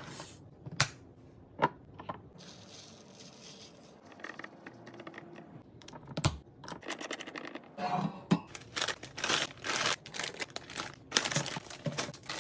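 Food packaging and containers being handled while restocking a pantry or fridge: tearing and crinkling of wrappers and scattered sharp clicks and taps. A few isolated clicks come in the first half, and the crinkling and clicking grow dense in the second half.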